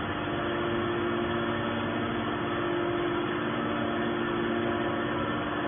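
Hydraulic scrap iron baler's power unit running steadily, a constant machine hum with a few steady tones.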